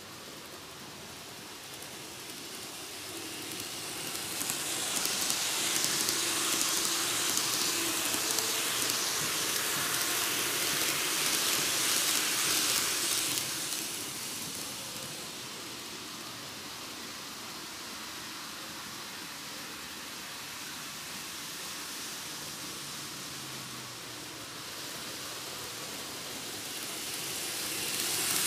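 N-gauge model trains running on Tomix canted track, giving a steady hiss of wheels on rail. The hiss swells as a train runs close past, from about four to thirteen seconds in. It then drops to a lower steady level and grows again near the end as the next train approaches.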